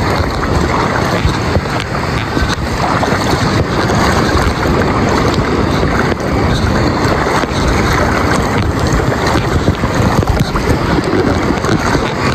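Wind buffeting the microphone in a steady rumble, over small waves lapping in shallow water.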